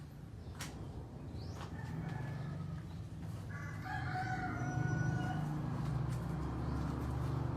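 A rooster crowing once, a long held call about four seconds in, over a steady low rumble.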